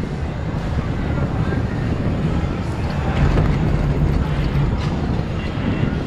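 Steady low rumble of wind buffeting the microphone on a moving sky-ride cable gondola.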